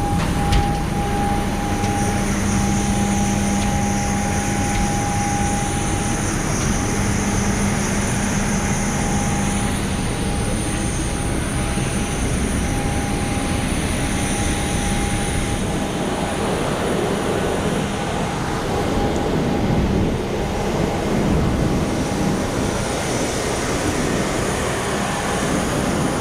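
Cabin noise inside a Boeing 737-800 taxiing after landing: a steady rumble with the engines' idle whine and a few constant tones, rougher in the last third.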